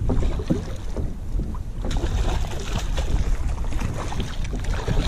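Wind buffeting the microphone, with irregular water splashes as a hooked redfish thrashes at the surface beside a kayak.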